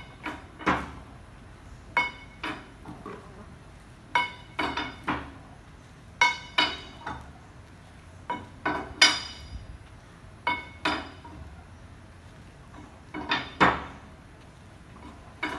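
Steel valve bar clanking on a 2-inch plug valve as it is set on and pulled round, stroke by stroke, to turn the plug down until it seats. Sharp ringing metal clanks come in twos and threes about every two seconds.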